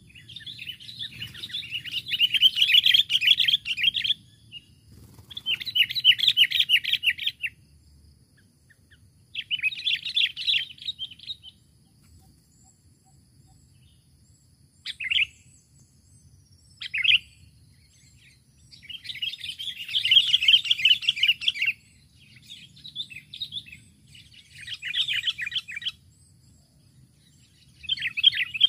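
Sooty-headed bulbul (kutilang) giving bouts of rapid, harsh chattering, each two to four seconds long, with a couple of short single notes in between: a call used as a lure to draw in a rival bulbul.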